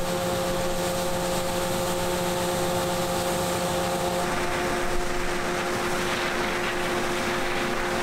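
John Deere combine and tractor engines running in the field: a steady, even machinery drone with a couple of constant humming tones over it, one lower hum dropping away about halfway through.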